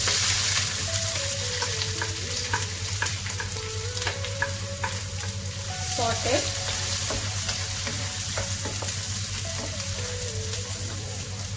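Chopped onion sizzling as it fries in hot coconut oil in a nonstick wok, with a wooden spatula stirring and scraping against the pan in short strokes. The sizzle is loudest at the start, just after the onion goes into the oil, and settles a little after.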